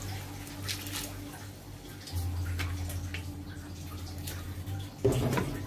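Water being poured into a large metal cooking pot of chicken pieces, splashing and dripping, over a steady low hum. A louder burst of sound comes near the end.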